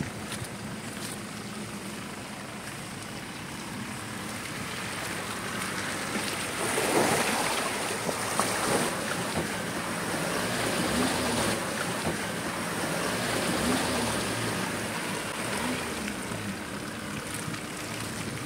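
Toyota Hilux pickup's engine running as it crawls through wet mud, with wind buffeting the microphone. The engine grows louder about a third of the way in, with a few short rises in pitch.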